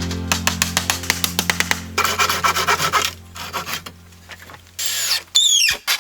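Fast, repeated rubbing and scraping strokes on wood over a steady low hum. The strokes thin out past the middle, and near the end a short hiss gives way to a falling whine.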